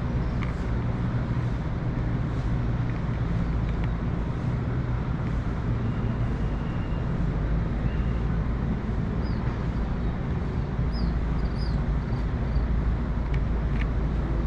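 Steady low rumble of city traffic heard from high above a city, without a break, with a few faint high chirps about two-thirds of the way through.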